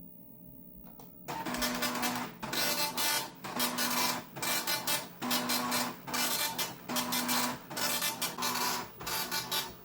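Philips NMS 1421 7-pin dot matrix printer printing, starting about a second in: the print head chatters across the paper in one short pass after another, with brief pauses between lines as the paper advances.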